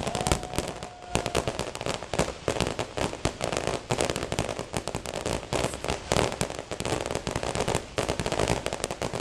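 Fireworks crackling and popping in a rapid, dense, unbroken stream of small sharp bangs.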